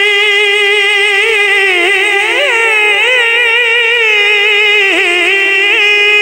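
A solo singer holding one long note of a Punjabi song. The note is steady at first, turns and wavers in ornamented runs through the middle, and settles back to a steady tone near the end.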